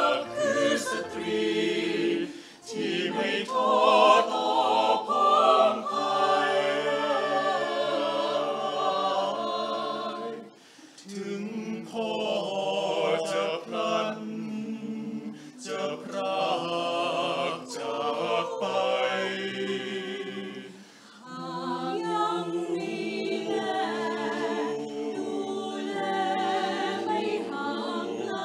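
Mixed choir of men and women singing a cappella in sustained chords, the voices dropping away briefly between phrases about ten and twenty-one seconds in.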